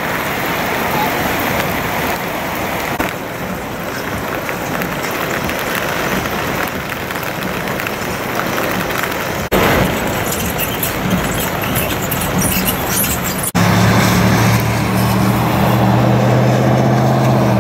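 Heavy rain falling, with traffic and cars splashing through flooded streets, in several cut-together shots. In the last few seconds a steady low hum joins the rain.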